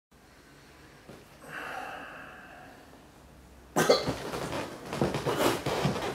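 A man coughing and breathing hard into his hands, a rough run of coughs that starts suddenly about four seconds in after a few quiet seconds.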